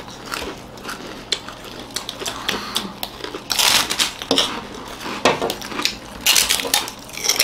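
Crispy puffed finger chips being bitten and chewed: scattered crunches and crackles, with two louder bursts of crunching in the middle and near the end.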